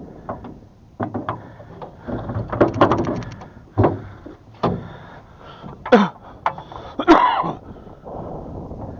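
Oars and gear being handled in a small boat as the oars are set in their oarlocks: irregular knocks and clatter, a quick rattle about two and a half seconds in, and a short squeak falling in pitch about six seconds in.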